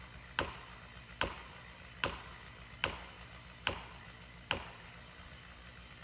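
Metal felling wedges being hammered into the back cut of a standing tree to start it leaning: six sharp strikes, evenly spaced a little under a second apart.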